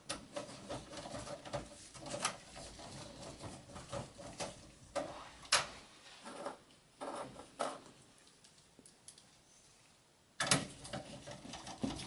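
Screwdriver working on screws at the back of a small-form-factor PC's steel case: irregular metal clicks, taps and scrapes. They pause for about two seconds near the end, then start again with a sharp knock.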